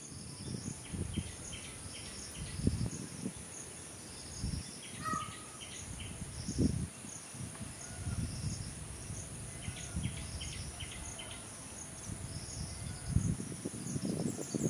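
A steady, high insect drone with small birds chirping in short repeated phrases, over irregular low gusts of wind buffeting the microphone.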